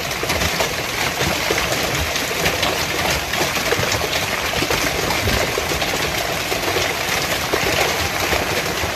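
Heavy hailstorm: hailstones and rain pelting a paved street, lawn and cars, a loud, steady rush packed with countless small sharp impacts.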